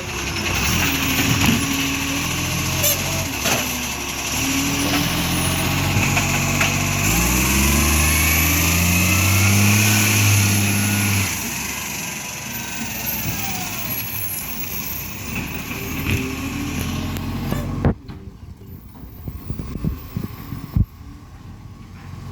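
Iveco ACCO garbage truck's diesel engine, which has an exhaust leak, pulling away and accelerating, its pitch climbing in steps through the gear changes. It then eases off and runs quieter. About eighteen seconds in, the sound drops away suddenly after a sharp click.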